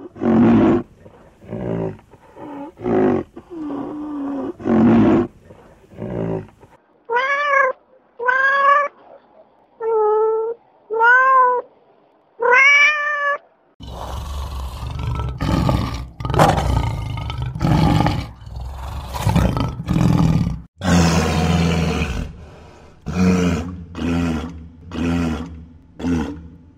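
A run of animal calls: short low grunts for the first several seconds, then five drawn-out calls that rise and fall in pitch, then from about 14 s a long series of deep roaring grunts from a lion.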